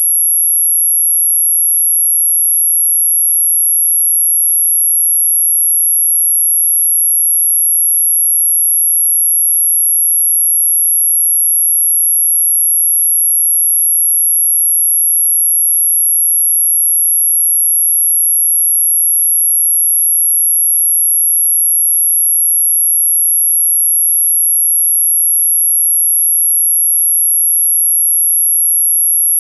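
A single steady, very high-pitched electronic sine tone, held unbroken at constant pitch and loudness: a synthetic anti-mosquito repellent tone.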